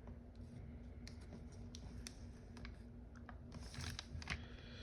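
A sheet of foil origami paper being handled and creased by hand: faint, scattered crinkles and small clicks over a low steady hum.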